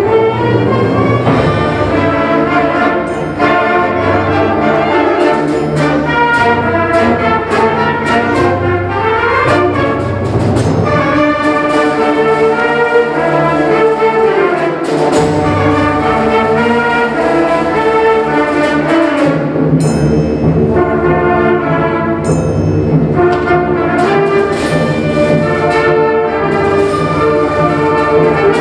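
Junior high concert band playing: woodwinds and brass in full sustained chords, with occasional percussion strikes.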